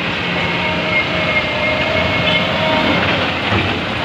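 Tata Signa four-axle tipper truck driving slowly past close by, its diesel engine running steadily.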